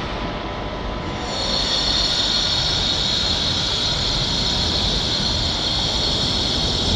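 Moscow metro train approaching through the tunnel toward the platform: a steady rumble with a high hiss that grows louder about a second and a half in.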